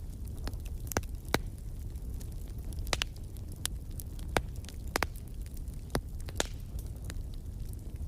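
Wood fire crackling in a fireplace: a steady low rumble of burning with sharp, irregular pops and snaps, the loudest about a second in and about five seconds in.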